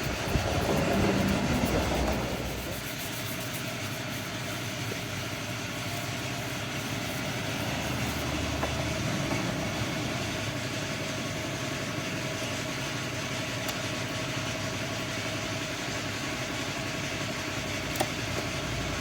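Tuned Vespa PX two-stroke single-cylinder engine, with a PE28 carburettor and reed-valve intake, running at a steady idle. It is a little louder for the first two seconds, then settles.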